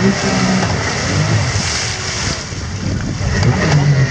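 Can-Am Maverick X3 side-by-side engine revving up and down under load, with a patch of hiss about halfway through.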